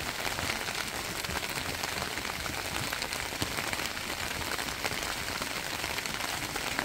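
Steady rain falling, with a dense scatter of small drop ticks.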